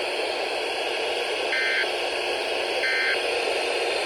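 Short bursts of Emergency Alert System digital data tones over steady radio hiss, one about one and a half seconds in, another about three seconds in, and a third starting right at the end. They come at even spacing, the pattern of the end-of-message code that closes an alert.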